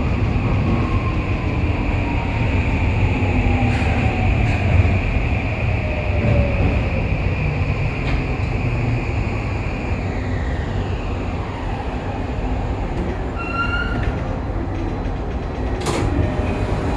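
Toei 5500 series subway train's Mitsubishi full-SiC VVVF inverter whining and falling in pitch as the train brakes into a station, over the steady rumble of wheels and running noise inside the car. Near the end there is a single sharp click.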